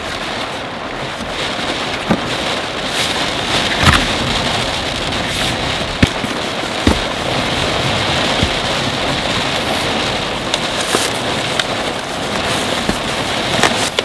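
Heavy rain drumming steadily on the car's roof and body, heard from inside the cabin, with a few scattered sharp knocks and taps.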